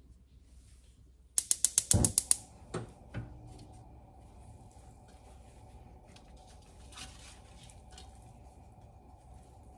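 Gas stove burner igniter clicking rapidly, about ten clicks in a second, then a faint steady rush as the burner catches. A wooden paddle stirs chopped vegetables in a large metal pot with a few soft scrapes and knocks.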